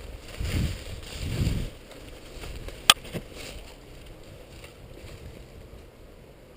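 Low wind buffeting and handling rumble on the microphone in the first second or two, then a single sharp snap about three seconds in, followed by a fainter one just after.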